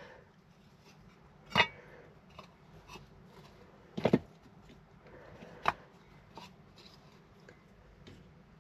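A few sharp, light knocks and clicks of wooden frame pieces being handled and set down on a bench, about one every second or two, with quiet in between.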